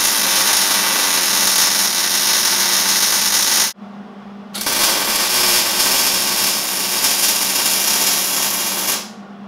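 Electric arc welding on an eighth-inch steel strip bracket: the arc hisses steadily in two runs, the first breaking off a little past halfway for about a second before the second starts and runs until shortly before the end. A steady low hum sits underneath.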